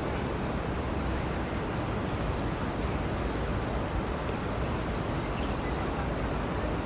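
Steady rushing outdoor noise, heaviest at the low end, with a few faint high peeps now and then.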